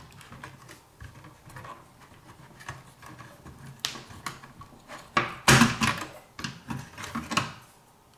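Clicks, knocks and scrapes of plastic and metal parts being handled: a cable connector is unplugged, then a 2.5-inch hard drive in its black plastic mounting bracket is lifted out of the console's metal frame. The loudest knocks come in a cluster from about five to seven and a half seconds in.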